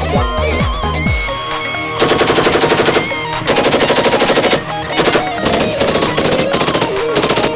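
Rifle firing on full automatic: two bursts of about a second each, with rapid, evenly spaced shots, then a string of shorter bursts, all over background guitar music.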